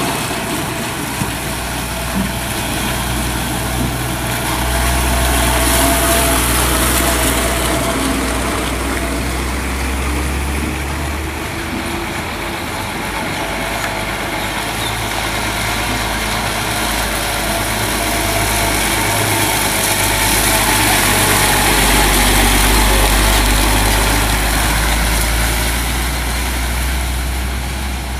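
Heavy diesel trucks loaded with logs driving slowly past on a dirt road, engines running with a deep drone. The drone swells twice as trucks come close and pass.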